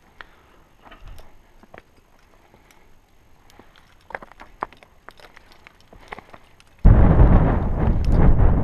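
Faint scrapes and clicks of hands and climbing shoes on rock, then, about seven seconds in, loud wind buffeting the helmet camera's microphone.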